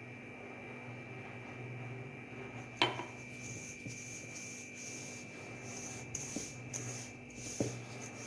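Hands rubbing fine semolina with oil in a bowl for harcha dough, a soft gritty rustling that comes and goes. There is one sharp knock about three seconds in.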